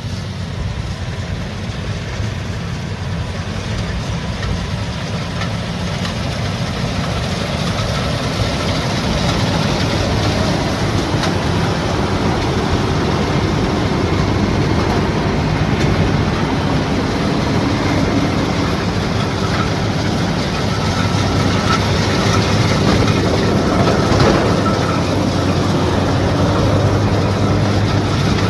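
Rice combine harvester running steadily, its engine hum and the clatter of its machinery growing louder over the first ten seconds or so.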